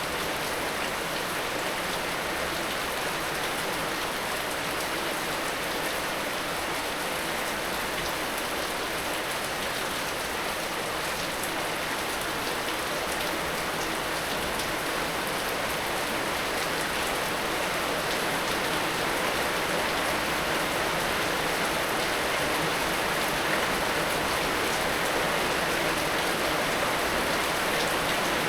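Heavy rain falling steadily, a dense hiss of drops on surfaces that grows slightly louder in the second half.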